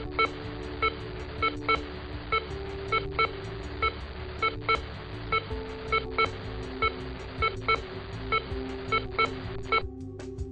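Background music: held electronic chords over a steady beat of short clicks and bright blips, about two a second. The chord shifts lower about halfway through.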